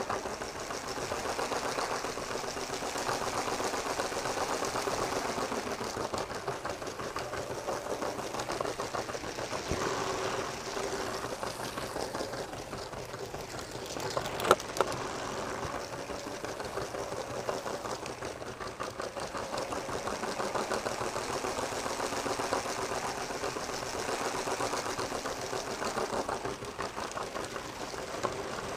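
LEGO train's small electric motor whirring steadily with a fast rattle of its wheels on plastic track, heard close up from on board the train; a couple of sharp clicks about halfway through.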